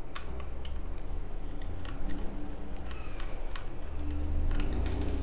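Scattered small clicks and ticks of a precision screwdriver working the tiny screws out of a 2.5-inch solid-state drive's case, with a quick run of clicks near the end.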